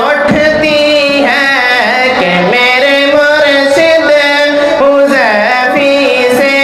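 Background music: a voice singing a slow, ornamented melody, with long held notes that waver and glide, over steady held lower tones.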